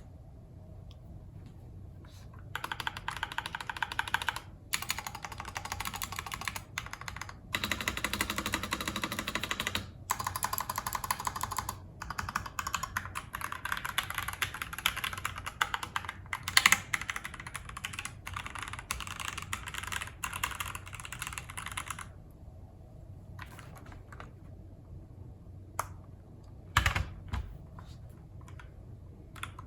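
Fast typing on a Tester 68 mechanical keyboard with Gateron Pro linear switches and PBT keycaps, in stock form without its sound mods: a dense run of key clacks with short pauses and one louder stroke, thinning to a few single keystrokes and a dull thump for the last several seconds.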